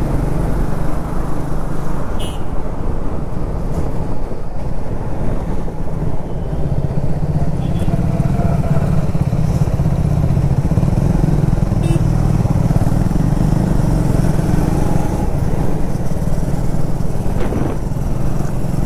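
Triumph Speed 400's single-cylinder engine running steadily while the bike is ridden along the road, with a low, unbroken engine note.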